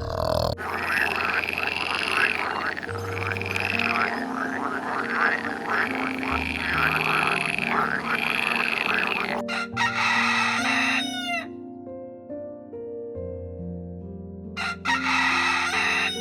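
Animal calls over steady background music: a dense run of repeated calls for most of the first nine seconds, then two shorter calls that fall in pitch.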